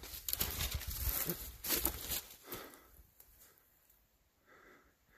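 Footsteps crunching through dry brush, with dead spruce twigs snapping underfoot, for about the first three seconds, then stopping.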